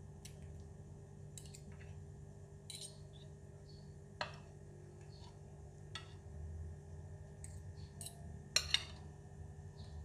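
Metal spoon and fork clinking against a porcelain bowl and plate while serving fish: a scattering of light, irregular clinks, the sharpest about four seconds in and a quick pair near the end.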